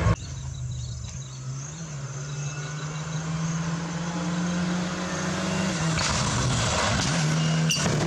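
Rally car engine on a dirt stage, held at a steady high note and growing louder as the car nears. Near the end the note breaks off twice, the second time with a sharp crack, then picks up again.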